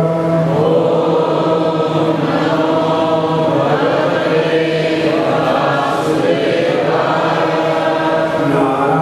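Several voices chanting devotional Sanskrit prayers together to a slow, steady melody, with notes drawn out for a second or more at a time.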